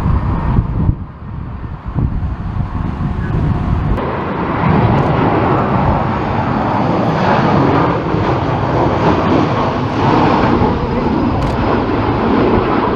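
Jet airliner engines running as the aircraft passes close by, a steady rushing that comes in about four seconds in and holds. Strong wind buffets the microphone underneath.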